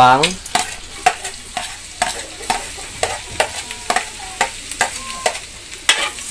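Minced garlic sizzling in hot oil and butter in a metal wok. Over the sizzle, a utensil clicks and scrapes irregularly, about three times a second, as the garlic is scraped off a plastic chopping board and stirred in the wok.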